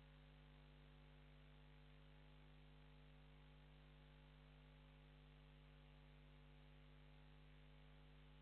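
Near silence: a faint, steady mains hum with hiss.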